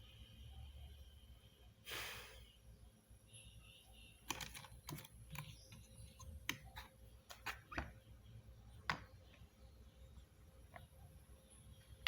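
Scattered light clicks and taps of small hard parts being handled, with a short rustle about two seconds in.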